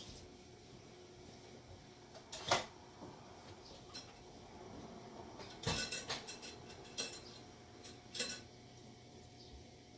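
A few scattered sharp clicks and clatters, the loudest about two and a half seconds in and a quick run of them around six seconds, over a low, steady room background.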